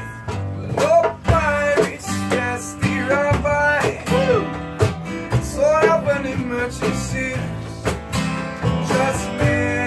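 Live acoustic song: a strummed acoustic guitar with a voice singing long notes that slide in pitch.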